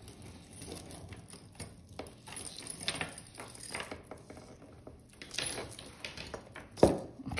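Small irregular clicks and light rattling of a fine metal chain necklace being handled and laid down on a plastic-covered table, with one sharper knock near the end.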